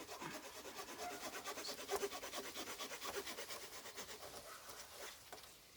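Short folding saw blade of a Victorinox Farmer X Alox pocket knife sawing into a wooden stick with quick, rapid rasping strokes, cutting a square notch; it fades out near the end.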